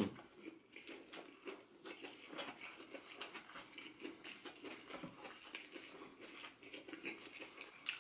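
Faint close-miked chewing of a lettuce wrap, full of small irregular mouth clicks, with the crinkle of fresh lettuce leaves being handled.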